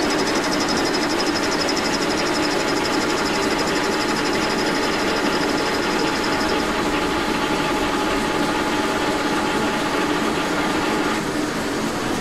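Brown & Sharpe No. 2 horizontal milling machine running, its spindle turning a boring head that bores out the hub of a hard cast-iron crank lever. A steady machine hum, with a fast, fine high ticking over it that stops about seven seconds in.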